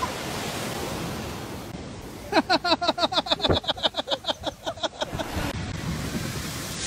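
Ocean surf rushing on the shore, then about two seconds in a person bursts out laughing, a rapid string of "ha" pulses lasting about three seconds, louder than the surf.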